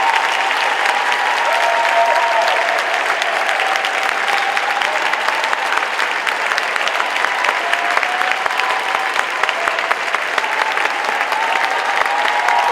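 Audience applauding: steady, dense clapping throughout, with a few held voices faintly audible over it.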